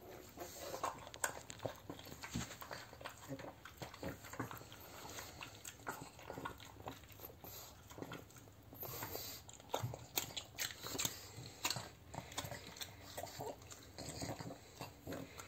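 Pug eating wet canned food from a ceramic bowl: a fast, irregular run of wet chewing, smacking and lapping, with piglet-like grunting.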